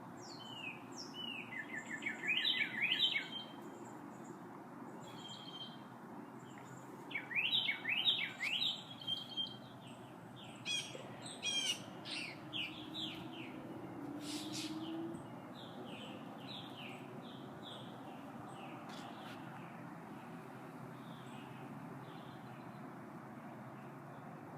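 Wild songbirds calling in several short series of quick, bright chirps over a steady background hiss. The loudest series come about two and eight seconds in, and fainter calls thin out over the rest.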